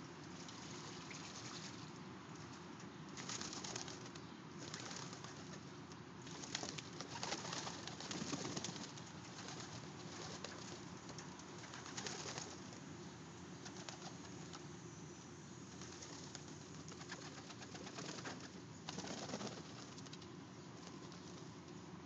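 A flock of domestic pigeons cooing, with several short rushes of wing flapping as birds take off, one about halfway through.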